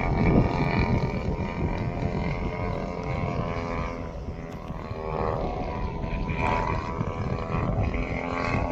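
Engine and propeller of a radio-controlled SBACH 342 aerobatic model plane running in flight, a steady buzzing tone that drops in pitch around the middle and climbs again as the plane manoeuvres.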